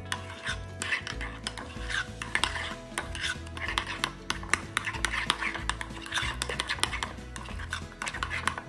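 A utensil stirring a thick, creamy mayonnaise-and-sour-cream mixture in a bowl, with rapid, irregular clicks and scrapes against the bowl.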